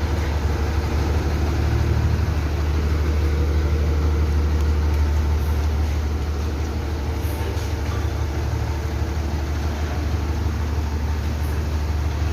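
Truck's diesel engine idling steadily, a low even drone.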